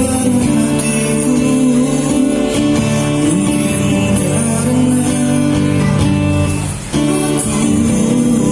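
Music with guitar and singing played loud through a sound system under test, with a brief drop just before the end.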